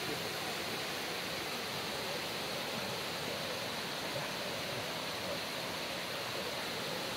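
Shallow rocky river rushing over stones and small rapids: a steady, even rush of water.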